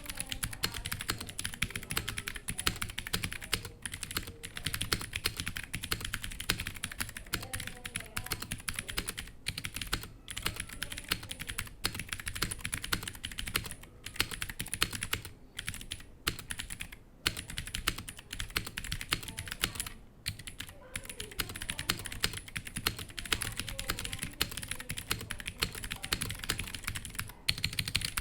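Continuous fast typing on a Womier HS-K87 mechanical keyboard with clicky Gateron Blue switches, stock keycaps and unmodded stabilizers, set on a desk mat. The stream of key clicks pauses briefly now and then.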